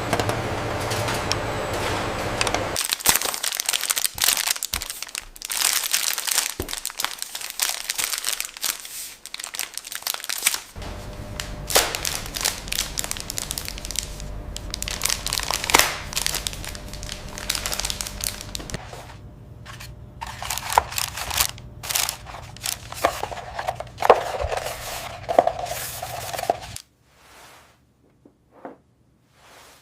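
Chocolate bar wrappers crinkling and crackling as bars are packed, over the steady low hum of packaging machinery. The hum cuts out near the end, leaving a few scattered crinkles.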